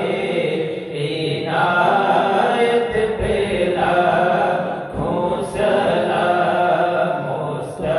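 A man's voice chanting a devotional recitation into a microphone, in long melodic phrases with brief pauses for breath.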